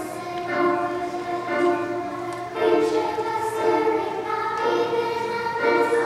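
A children's choir singing in parts, holding notes and moving to new ones every second or so.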